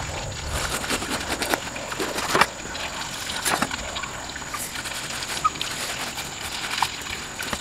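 A cleaver slicing through a ripe jackfruit's rind and flesh: irregular cutting and scraping sounds, with sharper knocks about two and a half and three and a half seconds in.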